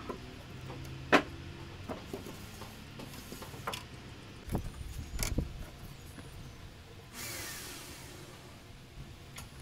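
Wooden knocks and clicks from a wooden sliding cabinet door being handled in its frame. There is one sharp knock about a second in and a cluster of knocks around the middle, then a steady hiss near the end.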